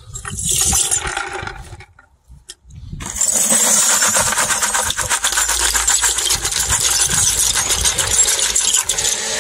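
Ground-up shotgun shell pieces, brass bases and plastic hulls, tipped into a bucket of water: a short clattering splash at first, then from about three seconds in a steady pour of wet pieces and water, a dense run of small metallic clinks and splashing.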